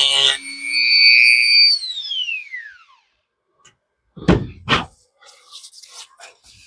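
A power tool spinning a sanding cartridge roll runs with a steady whine, then winds down in a falling whine once it is switched off. About a second later come two knocks half a second apart, followed by a few faint clicks.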